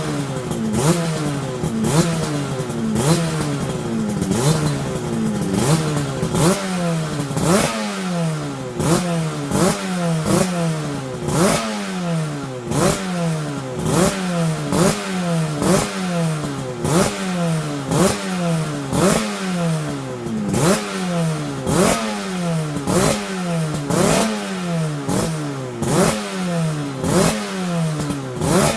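Yamaha TZR250 3MA parallel-twin two-stroke engine revved through new JL expansion-chamber exhausts. The throttle is blipped about once a second, each rev rising sharply and falling back, with the crackle and rattle of a two-stroke on the pipes.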